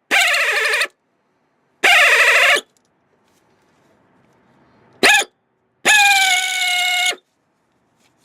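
Angle drill spinning a Time-Sert chamfering bit in a drilled-out exhaust-manifold stud hole of the cylinder head, run in four short trigger pulls. Each pull is a high motor whine that rises as it spins up and drops as it is released, and the last pull is the longest.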